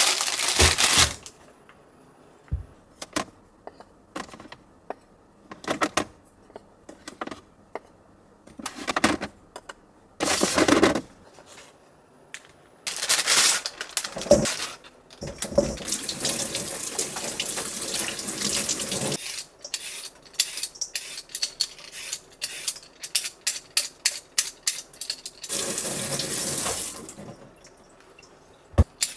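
Kitchen tap running into a stainless steel sink in two stretches, a long one about halfway through and a shorter one near the end, as carrots are rinsed. Between them come rustles of plastic bags and scattered small clicks and knocks.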